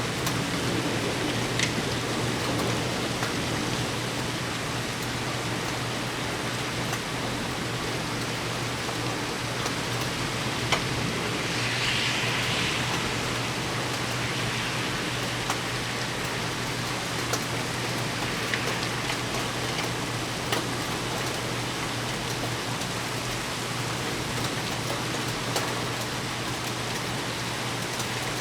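Heavy rain falling steadily in a severe thunderstorm, with scattered sharp ticks and a brief louder hiss about twelve seconds in.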